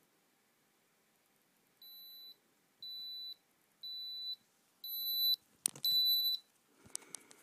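Digital oral thermometer beeping five times, about once a second, each beep louder than the last, to signal the reading is finished. A few clicks and handling noises follow near the end as it is taken out of the mouth.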